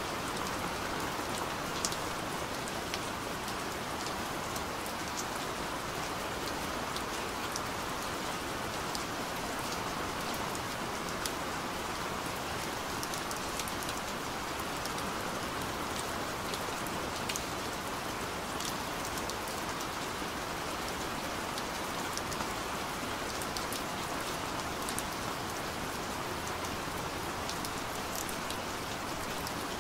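Steady rain-like hiss with scattered faint ticks.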